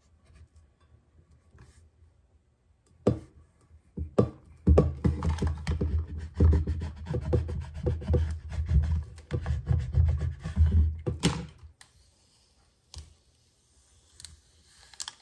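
Plastic squeegee scraping over transfer paper to burnish a vinyl decal onto a curved tumbler: a couple of knocks, then about seven seconds of repeated scraping and dull thumps that stop abruptly. A few faint ticks follow near the end as the transfer paper is peeled back.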